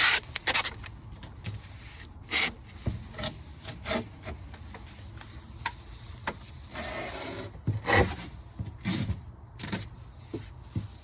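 Strips of tape pulled off the roll, torn and rubbed down onto a car window's glass, heard as a series of irregular sharp rips and scrapes, with a longer pull about seven seconds in.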